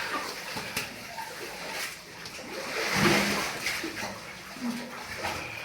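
Water splashing and sloshing in a shallow cave stream, with a louder splash about three seconds in.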